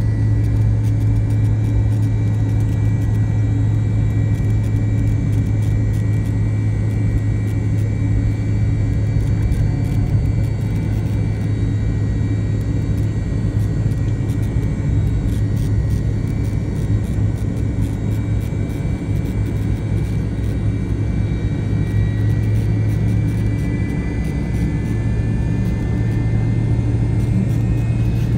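Cabin noise of a McDonnell Douglas MD-88 taxiing, its Pratt & Whitney JT8D engines at idle giving a steady low hum. A faint high whine over it wavers in pitch near the end.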